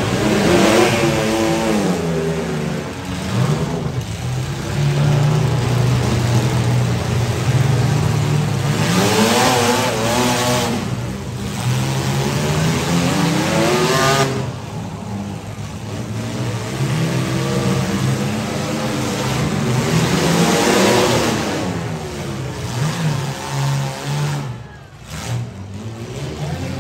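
Engines of compact demolition derby cars revving hard in repeated surges, the pitch climbing and falling four or five times.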